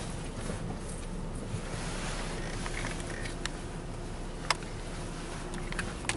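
Steady low hum of a car idling, heard from inside the cabin. Several small clicks, with one sharp click about four and a half seconds in.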